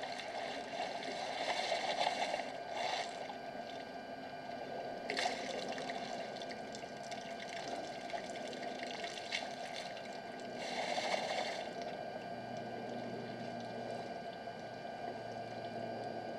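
Water splashing and gushing in a few short surges, typical of an elephant drinking at a waterhole. A steady background hum lies beneath.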